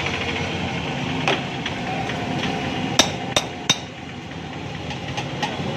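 Sharp metallic clinks from a steel mug and spoon being handled over a steel tray: a faint one about a second in, then three quick ones a little past halfway, over steady background noise.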